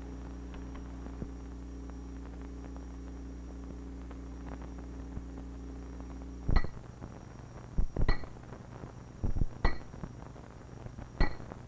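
Silver mallet driving the final spike into the rail tie, metal striking metal: four sharp ringing strikes about a second and a half apart, beginning a little past halfway. A steady low hum runs under the first half.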